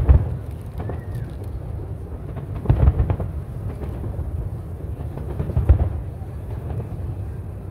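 Aerial firework shells bursting with deep booms, three of them about three seconds apart: near the start, about three seconds in, and near six seconds. A steady low background noise runs beneath them.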